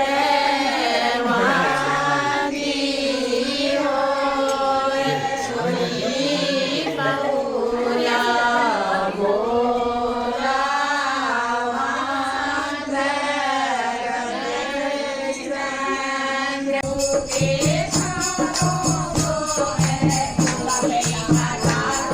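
Janeu mangal geet, an auspicious ceremonial song: a single voice sings a flowing, ornamented melody. About three-quarters of the way through, a steady rhythmic beat with tambourine-like jingling comes in under the voice.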